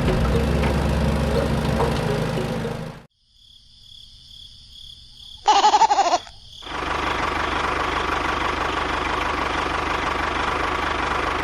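A motor running steadily, with a low even hum, cuts off abruptly about three seconds in. After a near-silent gap comes a short, loud pitched sound whose pitch wavers, about five and a half seconds in. Then a steady, noisier running sound starts up and carries on.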